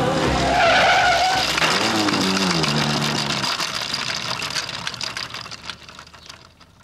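Motorcycle crash: a wavering tyre screech about half a second in, then the engine's note falls in pitch and the sound fades away to almost nothing.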